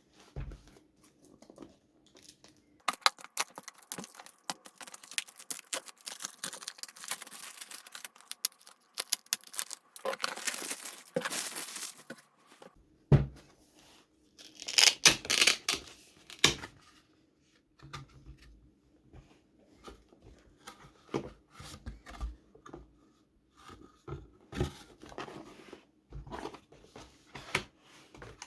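Packaging being torn open and crinkled by hand: a long crackling tear through the first half, a louder burst of tearing about halfway through, then scattered rustles and taps as it is handled.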